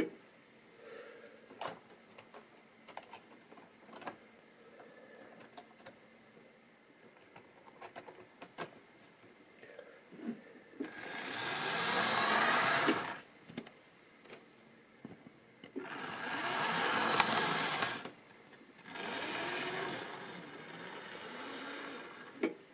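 Tri-ang OO gauge model trains running on the layout: scattered clicks of wheels over rail joints and points, then three loud passes close by, each a swelling and fading whirr of an electric motor with wheels rattling on the track.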